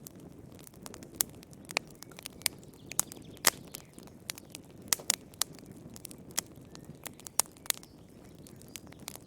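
Wood fire burning in a fireplace: a steady low rumble of flame with sharp, irregular crackles and pops, a few each second.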